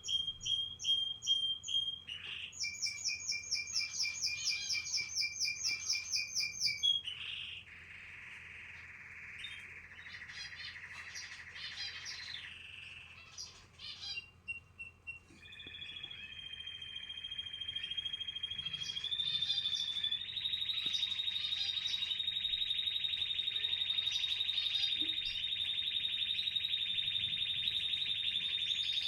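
Canaries chirping and singing: quick repeated chirps and trills for the first several seconds, softer twittering through the middle, then a long, even rolling trill from about two-thirds of the way in.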